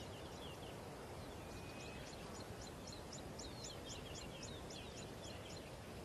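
Faint dry-savanna ambience: a bird calling in quick series of short, high chirps, about four or five a second, over a low steady hiss.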